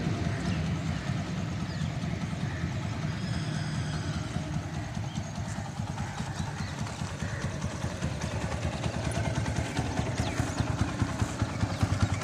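Motorcycle engine idling with an even, steady beat, growing louder near the end.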